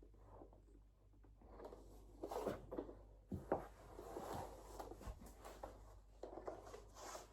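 Faint rustling and handling noise from hands working the parts of a ring-light tripod stand, with a few short sharp clicks around the middle.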